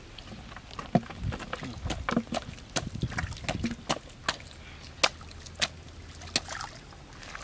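Hands splashing and sloshing through shallow muddy water, with irregular sharp slaps and splashes about once a second, as the mud is groped through for catfish.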